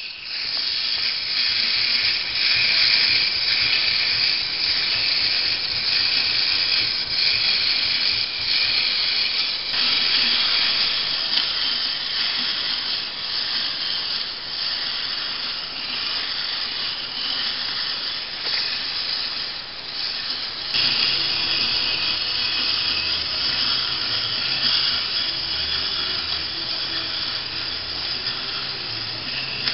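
Walking mechanism of a small tin toy robot, its gears whirring and rubbing steadily as it walks. About two-thirds of the way through there is a click and a lower hum joins the whir.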